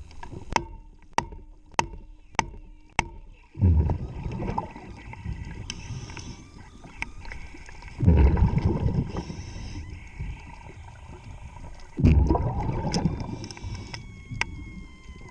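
Underwater sound of a diver's regulator exhaust: a loud bubbling rush about every four seconds, each fading over a second or so. In the first three seconds it comes with a series of sharp metallic clicks, about two a second.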